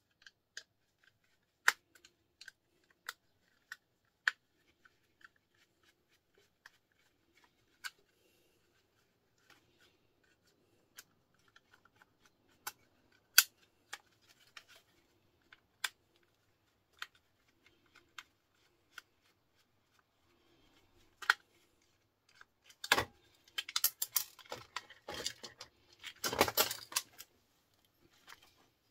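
Plastic wall socket being pried apart with a screwdriver: scattered sharp clicks and snaps of the plastic casing, then a burst of rapid cracking and rattling in the last few seconds as the housing breaks open.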